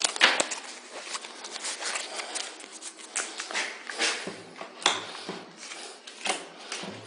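Playing cards being shuffled and dealt: an irregular run of short flicks and snaps.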